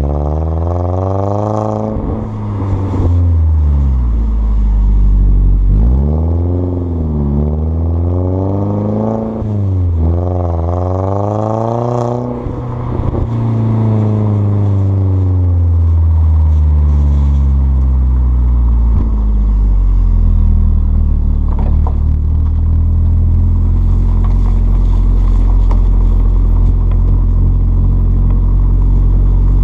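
Alfa Romeo Brera S 2.2's four-cylinder petrol engine heard at the tailpipes through a stainless steel catback exhaust, with the centre silencer removed and Prodrive back boxes, while the car is driven. The pitch rises and falls repeatedly over the first dozen seconds, then settles into a steady low drone.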